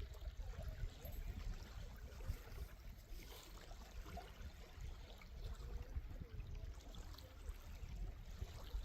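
Water trickling and lapping around a kayak on a lake, over a low rumble.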